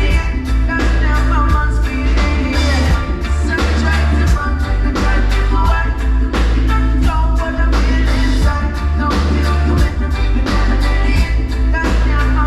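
Live reggae band playing: sung vocals over a heavy bass line and a steady drum beat.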